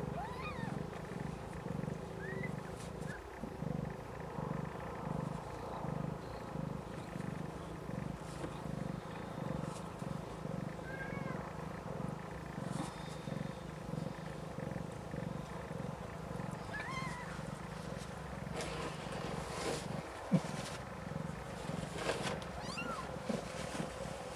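Snowshoe Siamese mother cat purring steadily, her purr pulsing evenly in and out, while she tends her newborn kittens. Now and then a newborn kitten gives a short high squeak, and there is some rustling with one sharp click about twenty seconds in.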